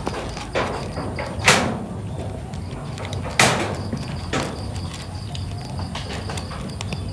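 A cat crunching dry kibble from a metal tray, with many small ticks. Two louder sharp clacks stand out, about one and a half and three and a half seconds in.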